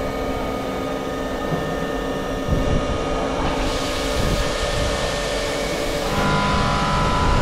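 Jyoti RDX 20 CNC vertical machining center running, its spindle whining with several steady tones. About halfway through, the hiss of flood coolant spraying joins in, and near the end new higher tones ring out as the end mill cuts into the metal workpiece.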